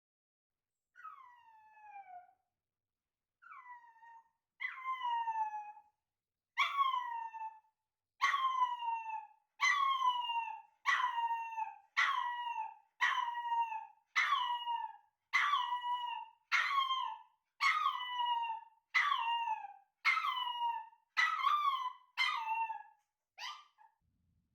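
Long-coat Chihuahua puppy crying: about eighteen high whining yelps, each falling in pitch, repeating roughly once a second. They start faint and grow louder after the first few.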